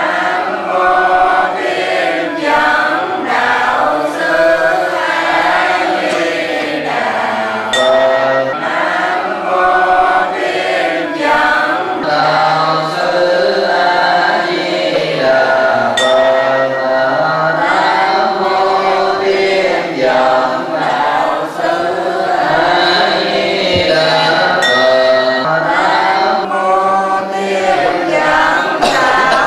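A group of voices chanting a Buddhist recitation together in a slow, sung unison. A sharp strike cuts in about every eight seconds.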